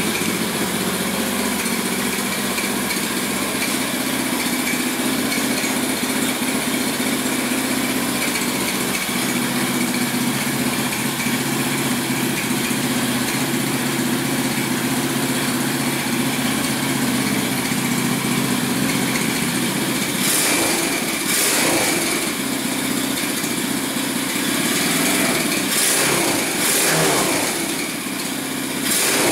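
150cc four-stroke single-cylinder engine of a mini Jeep Willys-style ATV idling steadily, then revved briefly a few times in the last third.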